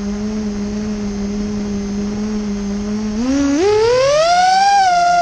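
Vortex 250 Pro quadcopter's brushless motors spinning at idle with a steady whine, then throttled up a little past three seconds in, the pitch rising sharply for takeoff on a 4S battery.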